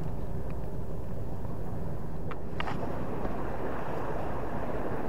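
Steady wind rumble on the microphone with sea noise, and a couple of faint clicks about two and a half seconds in.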